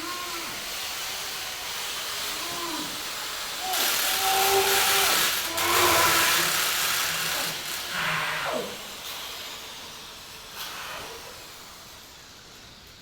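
Hissing, whirring power tool sound effect, swelling loudly twice about four and six seconds in, then fading away.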